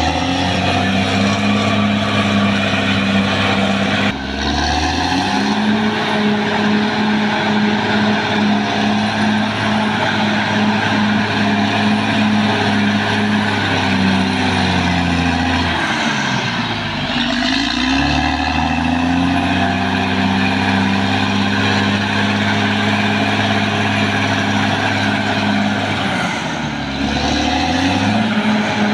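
Caterpillar D6R XL bulldozer's diesel engine running hard, a steady low drone with clatter and hiss over it. The engine speed sags and climbs back three times: about four seconds in, in the middle, and near the end.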